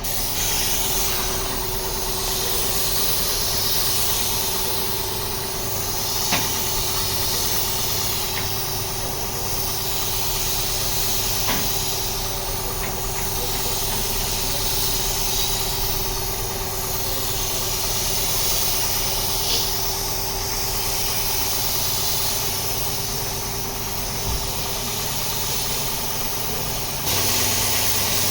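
A steady engine or motor running, with a hiss that swells and fades over it and a few sharp clicks; the sound changes shortly before the end.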